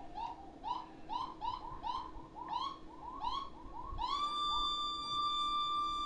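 Electric guitar through an amplifier making a seagull-cry effect: a quick run of short swooping cries, about three a second. About four seconds in, it switches to one long held tone.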